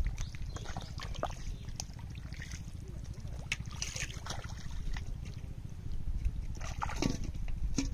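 Hands sloshing and splashing in shallow muddy water while groping for fish, in scattered short splashes, over a steady low rumble.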